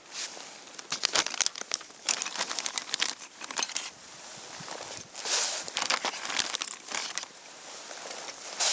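Irregular crinkling and crackling with sharp clicks, like packaging or paper being crumpled and handled, with a longer rustling burst about five seconds in.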